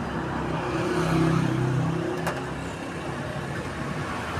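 A motor vehicle's engine running past, getting louder about a second in and then fading. A single sharp click comes about halfway through.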